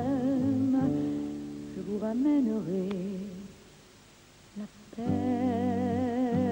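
Close of a French song with accompaniment: the last sung note is held with vibrato, and a short melodic phrase follows. A brief near-quiet gap comes about three and a half seconds in, then a sustained chord with a steady vibrato starts about five seconds in.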